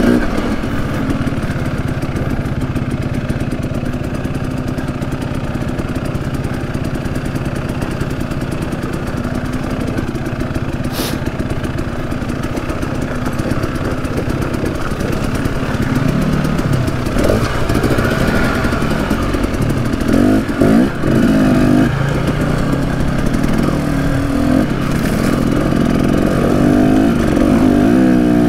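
Husqvarna enduro dirt bike engine running steadily under way on a trail. Later on the pitch rises and falls in several quick revs as the throttle is blipped and chopped.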